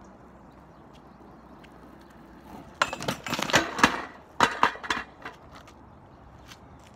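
Skateboard coming off a homemade metal-pipe grind rail in a failed grind attempt. After a quiet start, a rapid run of loud knocks and scrapes begins about three seconds in as the board strikes the rail and the rider falls. A second, shorter burst of clattering follows as the board lands on the pavement.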